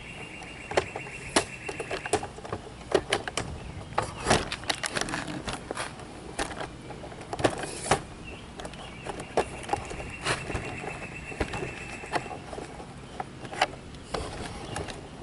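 Scattered clicks and knocks from a handheld camera being moved about. A high, even buzzing trill sounds twice, for about two seconds at the start and for about three and a half seconds from the middle.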